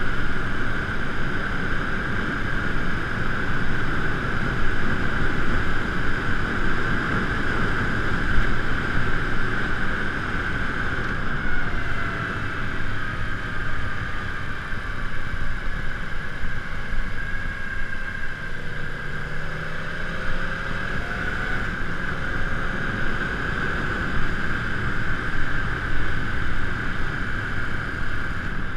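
Steady rushing wind and road noise picked up by a bike-mounted GoPro while riding, with a steady high hum over it. A few faint gliding tones come and go in the middle.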